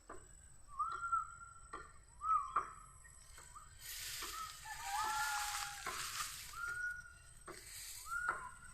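A series of short high-pitched animal calls, about one a second, each starting with a sharp click, with a hissing rustle through the middle few seconds.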